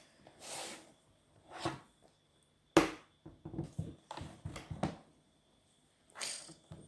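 Laptop being handled on a hard surface: a sharp knock a little under 3 s in, a quick run of smaller taps and clicks after it, and short sliding, rustling noises near the start and near the end.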